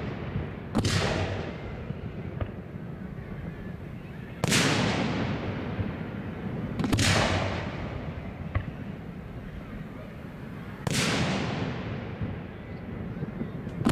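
Aerial firework shells bursting: four loud booms a few seconds apart, each trailing off in a rolling echo that fades over about two seconds.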